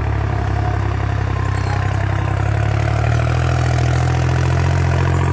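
New Holland 3630 tractor's diesel engine running steadily under load at about 1800 rpm in third gear, pulling an 18-disc harrow through tilled soil.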